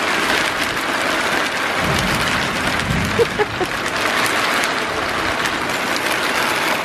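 Steady rain falling with a continuous hiss, and a brief low rumble about two seconds in.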